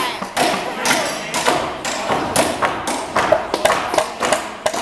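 Hammers striking nails into wooden wall framing, about three sharp blows a second at an uneven pace.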